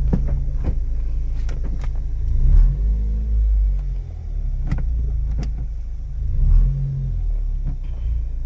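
Ford Fiesta ST180's 1.6 EcoBoost four-cylinder engine running at idle, its note rising briefly twice as if lightly revved. A few sharp clicks sound over it.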